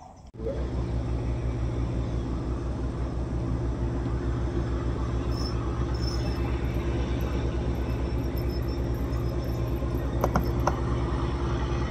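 A motor running steadily at an even speed, with a low, fast throb; it cuts in suddenly at the start.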